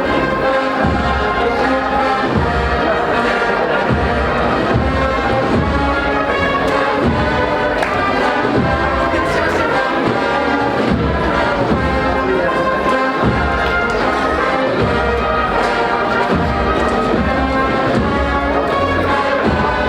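An agrupación musical, a processional band of brass and drums, playing a march with held brass melody lines over a regular bass drum beat.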